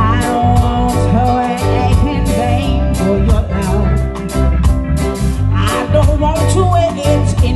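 A live reggae band playing: a woman sings over a prominent electric bass line, electric guitar, keyboard and a drum kit.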